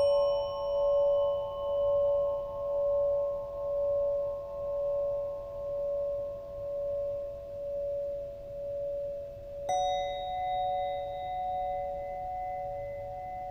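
Singing bowl ringing after a strike, its tone wavering in loudness about once a second as it slowly fades. About ten seconds in it is struck again, adding a brighter, higher tone.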